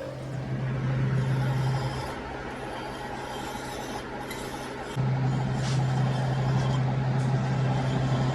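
A steady machine hum with a rasping noise over it. The hum eases about two seconds in and comes back louder about five seconds in.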